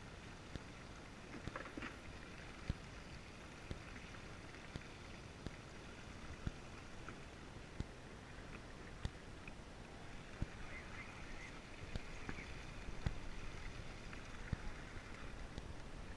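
Water slapping against the hull of a small drifting fishing boat, with a steady hiss of wind and sea and scattered sharp knocks, about one a second.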